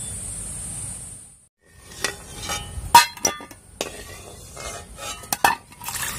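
Water running as soaked masoor dal is rinsed, stopping about a second in; then a string of sharp clinks and knocks of kitchen utensils and pots.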